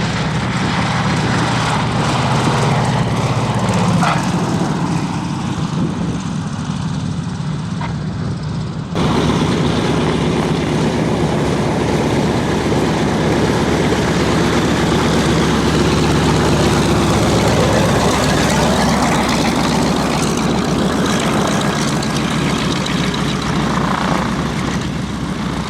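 A Douglas DC-3's twin radial piston engines and propellers running steadily. About nine seconds in the sound changes abruptly to a denser, more even drone, and it begins to fade near the end.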